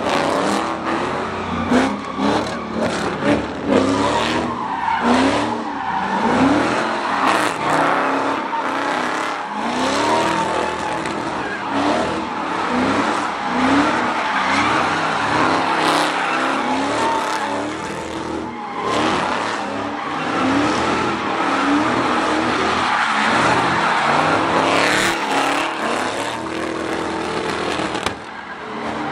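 A car doing donuts, its engine revving up and falling back about once a second while its tyres squeal and skid on the pavement.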